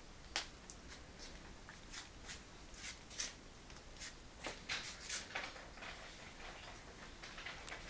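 Faint, irregular rustles and light clicks of a Scottish terrier shifting its head against bed sheets, with a sharper click just after the start and another about three seconds in.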